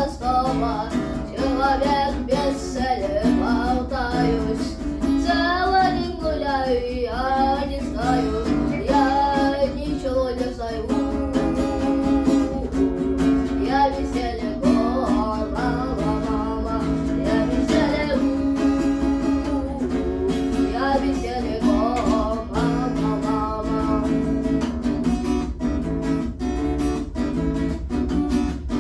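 A child singing a rock song to strummed acoustic guitar, with the guitar strumming on its own between sung lines.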